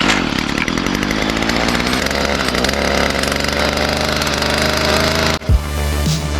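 Stihl FS45C string trimmer's small two-stroke engine running fast and loud, starting abruptly. About five seconds in it cuts off, and electronic music with a heavy bass beat takes over.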